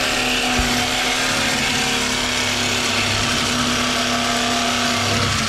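Cordless reciprocating saw running steadily as it cuts through the steel exhaust pipe to remove the old catalytic converters, with a constant motor whine; it stops near the end.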